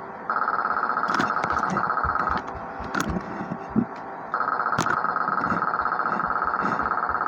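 A steady high-pitched tone sounds twice, first for about two seconds and then again for about three, with scattered clicks and knocks around it.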